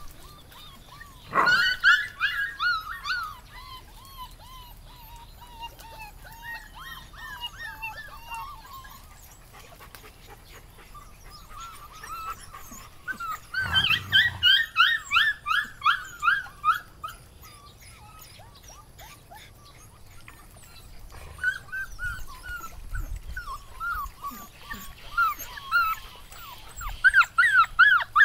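Puppies yelping and whining in repeated high-pitched bouts, several short cries a second, each series sliding gradually lower in pitch.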